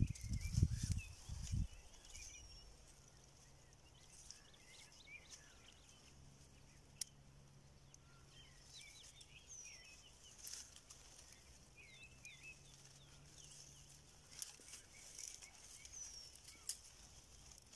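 Faint outdoor ambience by open water: scattered small bird chirps and twitters, with a few short falling whistles. A low rumble of wind or handling noise comes in the first second or so, and a faint low hum is under the middle part.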